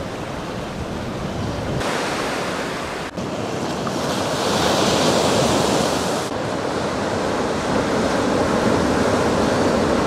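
Small waves breaking and washing up on a sandy beach: a steady rush of surf that changes abruptly in tone a few times.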